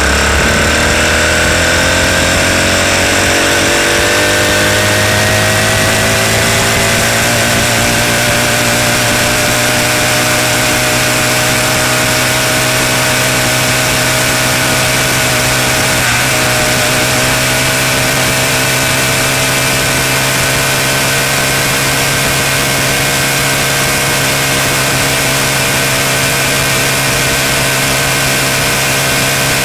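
Four-stroke motorized bicycle engine running under load while riding. Its pitch rises over the first few seconds as the bike gathers speed, then holds steady at speed, with one brief click about halfway through.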